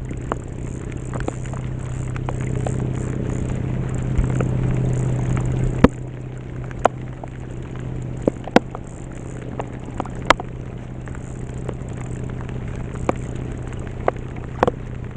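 Rain pattering on the kayak, with scattered sharp drip clicks over a steady low hum. The hum is louder for the first six seconds and ends with a sharp knock.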